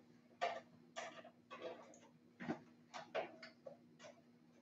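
Faint, irregular knocks and clicks from someone moving about and handling objects, about ten in a few seconds, over a steady low hum.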